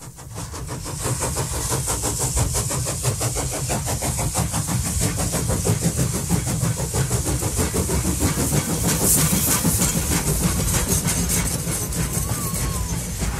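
Steam locomotive working, its exhaust beats coming in a fast, even rhythm over a heavy low rumble, fading in at the start.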